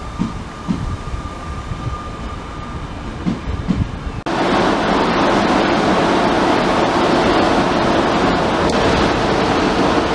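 A regional electric multiple unit rolling slowly past with a low rumble, a few thumps and a faint whine. About four seconds in it gives way abruptly to a much louder, steady rushing noise of a Deutsche Bahn ICE high-speed train running in on a curve, with a steady tone joining near the end.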